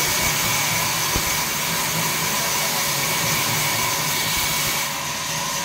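Large sawmill band saw running and cutting jackfruit-wood planks: a steady whine over a hiss of sawing. A high tone drops away about five seconds in.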